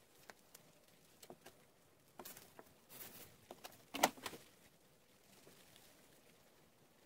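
Faint handling noises on a wooden bench slat: scattered small taps and scuffs as a block is rubbed over the wood and set down, with one louder knock about four seconds in. It settles to quiet shop noise for the last couple of seconds.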